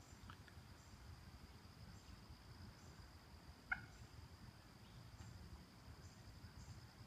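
Near silence: a faint, steady, high-pitched insect drone, with one short sharp call about three and a half seconds in.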